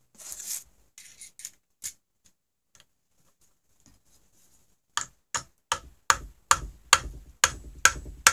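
A flathead screwdriver tapping the stator of a 1995 Polaris Indy 600 snowmobile engine from behind to knock it loose: a steady run of sharp metal taps, about two to three a second, starting about five seconds in. A few lighter clicks and some handling noise come before it.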